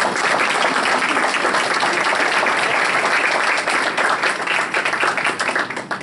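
Audience applauding: many hands clapping at once in a steady patter that thins out near the end.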